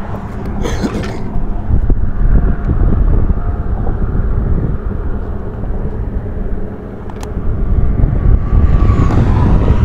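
Road traffic rumbling past on the bridge, swelling about two seconds in and again near the end.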